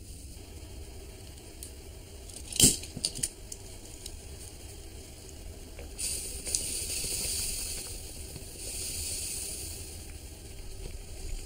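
A sharp metallic clink and a few small clicks, then a steady hiss for about four seconds from the miniature rice pot heating over a small flame.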